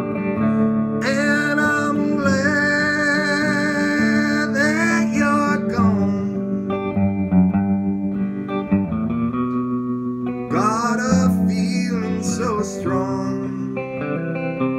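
Electric guitar solo on a 1956 Gretsch Country Club hollow-body played through a 1950 Epiphone Electar amp: single notes and chords, with bent and wavering notes about a second in and again past the ten-second mark.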